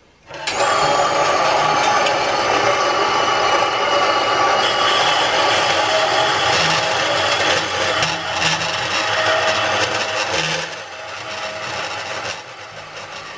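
Bandsaw blade grinding against a crushed stainless steel Yeti bottle: a loud, steady rasp with thin high ringing tones in it. The buckled bottle will not let the blade cut through. It starts about half a second in and eases off in the last few seconds.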